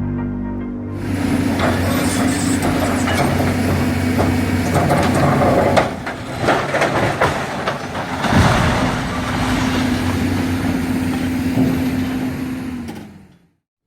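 Heavy diesel demolition machinery running, with many sharp cracks and clatters of breaking and falling concrete debris; it cuts off suddenly near the end.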